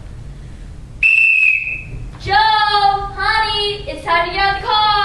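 A sports whistle blown once, a steady shrill blast lasting about a second, followed by young women's voices calling out in long drawn-out, sing-song syllables like a team cheer.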